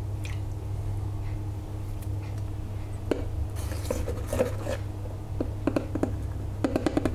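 Kitchen bottles and utensils being handled around a small bowl: scattered light clicks and knocks from about three seconds in, ending in a quick run of clicks, over a steady low hum.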